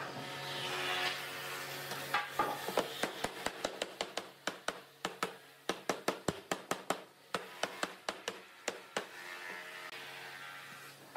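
Wooden mallet tapping quickly and repeatedly on a pine panel, about four to five knocks a second, seating it down into its wooden frame. Before and after the tapping, the wood slides and rubs across the workbench.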